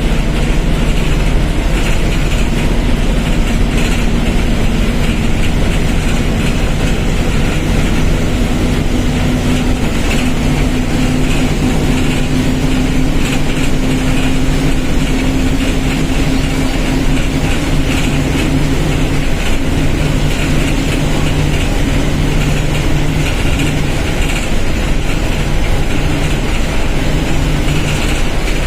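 Diesel engine of a Mercedes-Benz OF1721 BlueTec 5 bus running at a steady speed, a constant hum whose pitch shifts slightly a few times.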